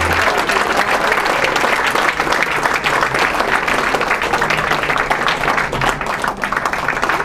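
Audience applauding, many hands clapping at once. The song's last sustained low note cuts off just as the applause begins.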